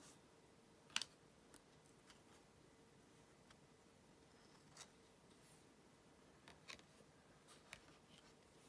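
Near silence with faint clicks and slides of thin trading cards being handled and moved through a stack by hand. The sharpest click comes about a second in, and smaller ones are scattered through the rest.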